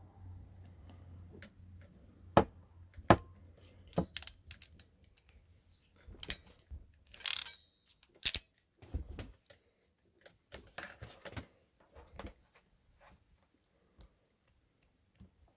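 Irregular clicks, taps and brief rustles of Anderson Powerpole connectors, cable and hand tools being handled, with a few sharp louder clicks in the first few seconds.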